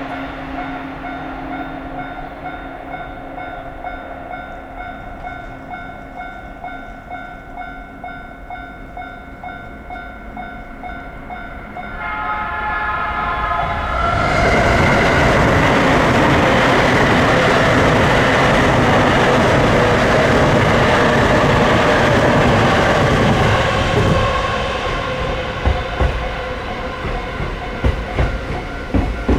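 Japanese railway level-crossing alarm dinging steadily in a repeating electronic tone. About twelve seconds in, a train approaches and passes loudly through the crossing for about ten seconds. Its wheels then clack over the rail joints as it draws away, while the alarm keeps ringing.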